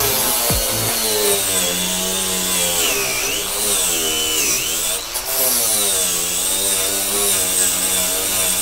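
Electric angle grinder cleaning rusty steel car-body panels back to bare metal. Its motor whine rises and falls as it bites into the metal and eases off.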